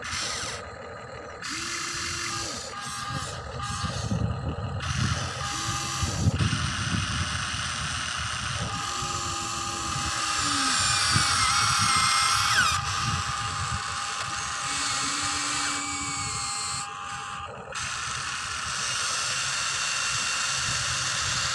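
Electric motors and gears of a Huina radio-controlled toy excavator whirring as it digs and swings its arm. The whine rises and falls in pitch and is loudest around the middle.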